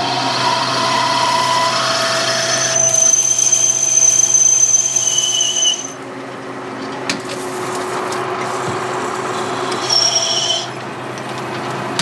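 Metal lathe running while a twist drill bores into the end of a spinning 7075-T6 aluminum bar. A steady motor hum runs under high whining tones, which stop about six seconds in and come back briefly near the end.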